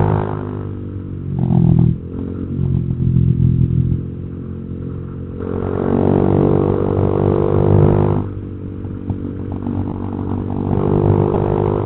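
Honda Vario 150 scooter's single-cylinder engine through an imitation (KW) aftermarket exhaust, heard while riding. The exhaust note swells and drops back repeatedly as the throttle is opened and eased off.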